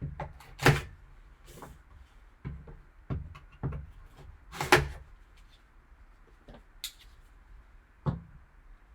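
Sealed trading-card box being opened and its contents handled: scattered taps, knocks and rustles of cardboard and plastic, the loudest a sharp knock about halfway through.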